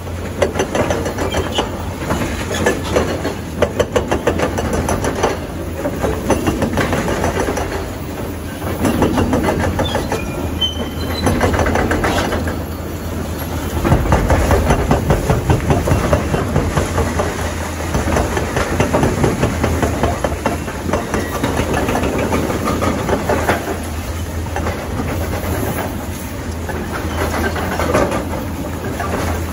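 Excavators demolishing a concrete bridge: heavy diesel machinery running under a rapid, rhythmic pounding and rattling on concrete and rubble, louder in stretches a few seconds long.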